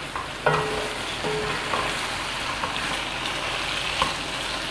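Chicken pieces sizzling as they fry in hot oil in a karahi, stirred and turned with a wooden spatula; a steady frying hiss with a brief click about four seconds in.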